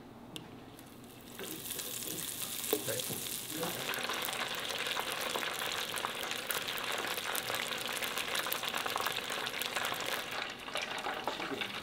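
Battered halibut pieces deep-frying in a pot of hot oil, with a dense crackling sizzle. The sizzle starts about a second in and grows louder.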